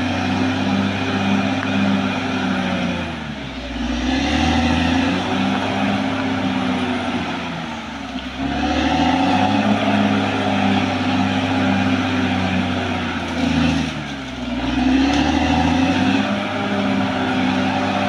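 Caterpillar D6R XL bulldozer's diesel engine running hard. Its pitch sags three times, about three and a half, eight and fourteen seconds in, and each time comes back up.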